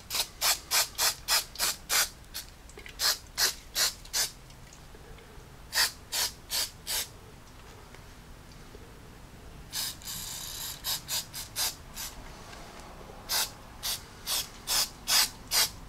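Aerosol can of 3M Super 77 spray adhesive in use, gluing a blower-motor gasket: runs of short, sharp strokes at about three a second, broken by pauses, and a half-second hiss of spray about ten seconds in.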